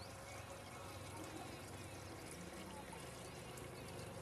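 Faint steady background noise: an even hiss with a low hum, and no distinct event.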